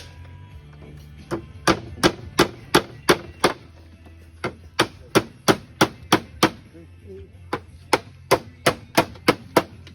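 Hammer blows in three quick runs of about three strikes a second, with short pauses between the runs.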